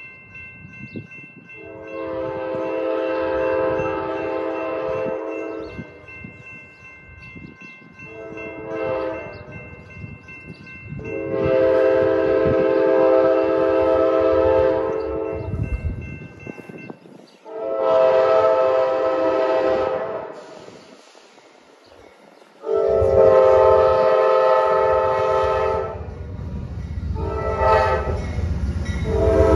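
Amtrak P42DC diesel locomotive's multi-note air horn sounding a series of long and short blasts as the train approaches, a warning for the grade crossings it is nearing. Near the end the rumble of the locomotive and its wheels grows louder.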